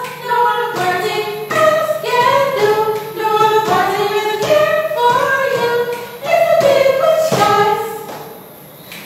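A song with female singing voices carrying a melody over a steady beat, with a short pause near the end.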